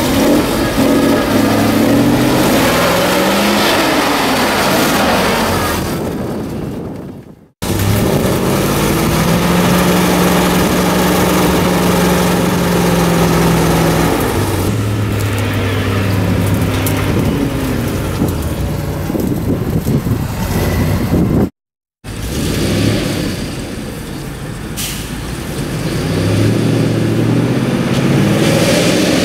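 Modified ZIL-131 6x6 truck's engine working under load over dirt mounds, its revs climbing and falling back again and again. The sound cuts out abruptly twice.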